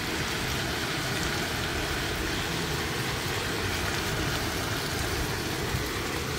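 Beef bulgogi and sliced onions sizzling steadily on a hot round griddle pan as they are stirred with chopsticks, with a low steady rumble underneath.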